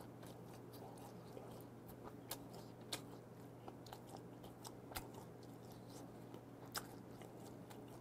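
Faint close-miked chewing of a mouthful of gwamegi, half-dried fish, with scattered soft mouth clicks and smacks over a low steady hum.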